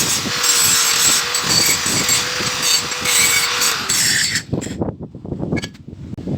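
A power tool working metal, running with a steady motor whine under a harsh hiss, then stopping about four seconds in. Lighter scattered knocks and clatter follow.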